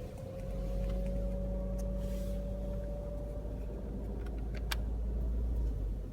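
Skoda Octavia A7 cabin drone with the air conditioning on. A deep hum sets in just after the start and cuts off shortly before the end, with a thin whistle that rises slightly in pitch over the first few seconds. It is a fault the dealers could not identify.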